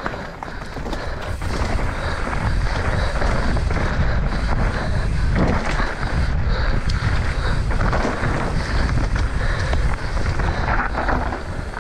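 Mountain bike rolling fast down a dirt singletrack, with wind rushing over the microphone, tyre rumble, and many short rattles and clicks from the bike over the rough ground.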